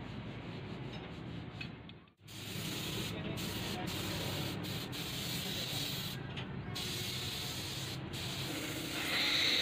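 Sandpaper rubbed by hand over a Suzuki APV van's steel door and front fender while preparing the body for paint, a steady rubbing hiss that starts about two seconds in after low background noise.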